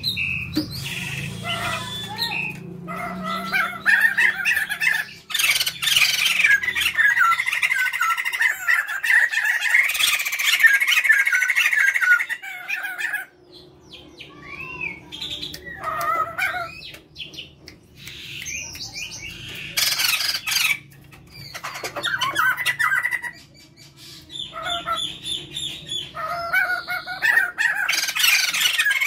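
A pair of white-crested laughingthrushes, male and female, calling together in bouts of rapid, jumbled squawking notes, broken by several short pauses.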